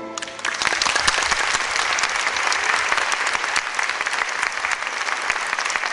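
Theatre audience applauding, many hands clapping steadily, starting about a quarter second in as the last notes of the music die away.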